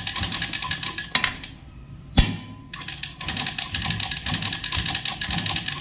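Romy domestic sewing machine stitching through thick fabric with a rapid, even clatter of needle and feed, now running with its cam correctly set. The clatter eases off for a moment, then comes a single sharp knock about two seconds in, and the stitching resumes.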